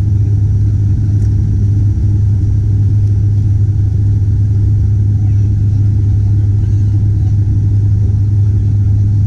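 Turboprop airliner's engines and propellers heard from inside the passenger cabin: a loud, steady low drone.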